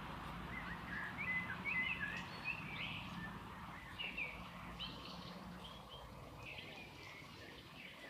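Small songbirds chirping: many short high notes in quick succession over the first few seconds, then more scattered, over a low steady background rumble.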